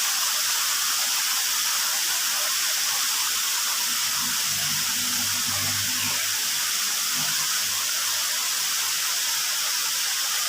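Steady rushing of water from a small stream and waterfall pouring over rocks.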